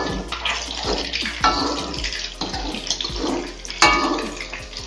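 A metal spatula stirring squid in a thin black ink sauce in an aluminium wok: the liquid sloshes, and the utensil clinks and scrapes against the pan several times.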